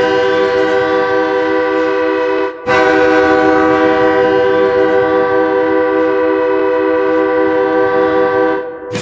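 Hockey arena goal horn, an air horn that the uploader takes for a train horn, sounding a loud, steady chord of several notes. It breaks off briefly about two and a half seconds in, then sounds again for about six seconds and stops near the end.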